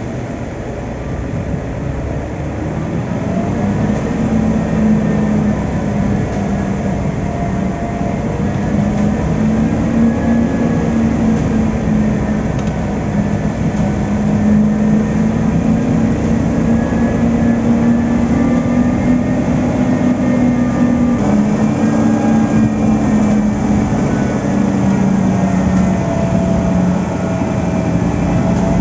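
Heavy diesel construction machinery running steadily at a piling site. It grows louder over the first few seconds, and its engine pitch drifts slowly up and down.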